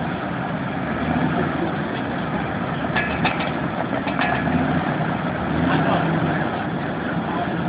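Jeep Wrangler TJ engine running as the Jeep sits deep in a mud hole, with a few short sharp clicks about three to four seconds in.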